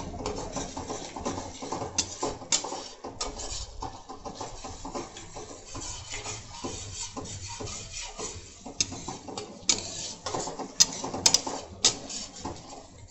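A metal spatula scraping and stirring thick masala paste around a metal kadhai, with sharp clinks where it knocks the pan's side, several of them close together near the end. The paste is being fried in oil until the oil separates.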